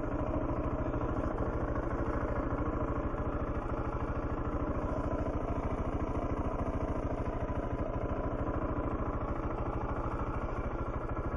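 Motorcycle engine running at low, steady revs with an even, regular putt and no revving.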